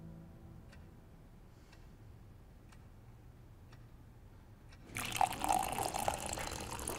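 Faint ticks about once a second in a quiet room, then about five seconds in, a sudden loud rush of running water, like liquid filling a vessel.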